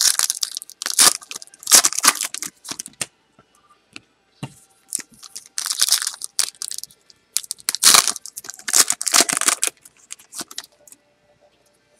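Foil wrapper of a 2012 Panini Prizm Baseball card pack being crinkled and torn open by hand, in several bursts of crackling with short pauses between.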